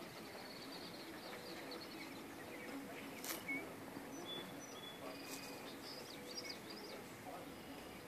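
Faint outdoor birdsong: scattered short, high chirps and whistles, busiest in the second half, over a quiet steady hum. A brief sharp click sounds a little after three seconds in.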